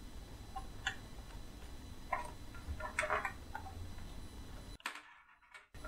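A handful of faint clicks and taps as the plugs of connecting leads are pushed into the sockets of an electron diffraction tube's holder and the leads are handled, with a short gap of dead silence near the end.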